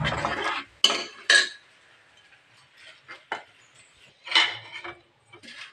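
Metal spoon scraping and clinking against the inside of an aluminium pressure cooker as cooked dal with vegetables is stirred. The clatter is busiest in the first second and a half, with scattered faint clicks after that and another short burst a little past four seconds.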